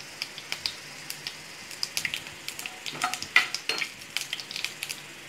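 Tempering spices (mustard seeds, urad dal, cumin, fennel and fenugreek) crackling and popping in hot oil in a nonstick kadai, with sharp pops over a steady sizzle. About three seconds in, a spatula scrapes and stirs through them.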